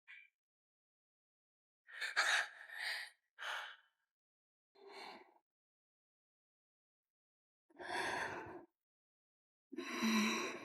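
A person's breathy sighs and gasps: about six short breaths separated by silence, the last two louder and with some voice in them.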